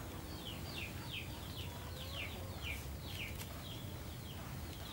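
Chicks peeping: a run of short, high, falling peeps, about two a second.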